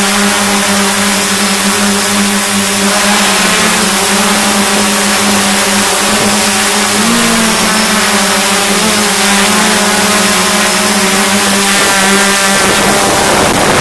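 Hexcopter's electric motors and propellers humming steadily over a high hiss of rushing air, heard from the craft itself. The pitch wobbles briefly about seven seconds in, and near the end the steady hum gives way to a rougher, noisier sound.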